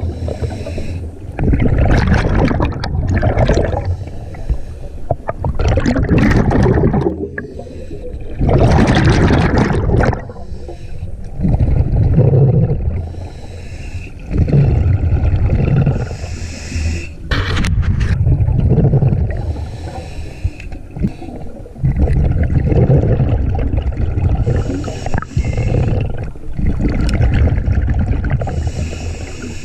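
Scuba diver breathing through a regulator underwater: hissing inhalations alternate with low, gurgling bursts of exhaled bubbles, a breath every few seconds.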